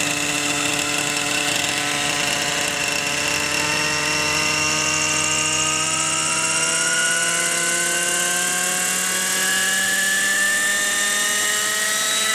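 Vintage Kalt Baron 50-size RC helicopter's O.S. 50 two-stroke glow engine running, steady at first, then rising steadily in pitch from about four seconds in as the throttle is opened to spool up for flight.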